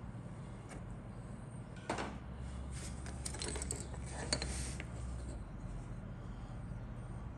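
Injection-moulded plastic model kit parts handled and set down on a cutting mat: a few light clicks and taps, one about two seconds in and a cluster a second later, over a low steady hum.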